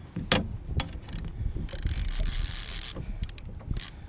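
Baitcasting fishing reel clicking and ratcheting while a hooked fish, taken for a salmon, is fought, with scattered sharp clicks and a stretch of high buzzing about two seconds in. Low wind rumble on the microphone underneath.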